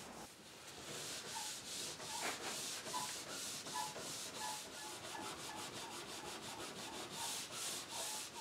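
Scotch-Brite pad rubbed back and forth by hand over a finished wooden table top: a quiet, rhythmic scrubbing hiss. The pad is scuffing the dried finish smooth between coats, where sandpaper clogs.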